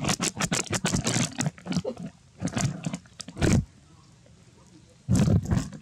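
Baby macaques screeching in harsh bursts, with a short lull about two seconds in and a longer one between about four and five seconds.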